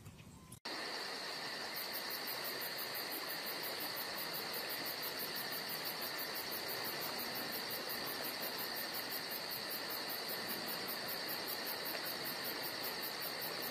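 Steady chorus of crickets and other insects over a soft hiss, starting abruptly about half a second in, with a rapid, very high pulsing chirp joining about two seconds in.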